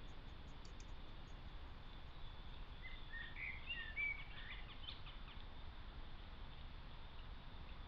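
Steady outdoor background hiss and low rumble, as picked up by a trail camera's microphone. About three seconds in, a small bird sings a short phrase of quick warbling notes.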